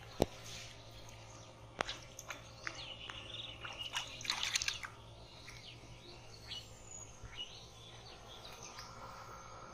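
Hands splashing and sloshing in shallow muddy water, with a few sharp clicks and birds chirping. The busiest stretch of splashing and chirps comes a few seconds in.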